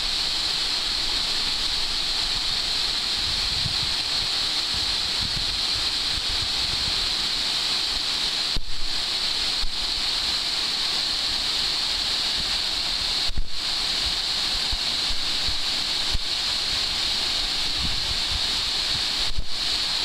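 Waterfall spilling over a stone dam onto rocks: a steady rushing hiss of falling water, with a few brief low bumps now and then.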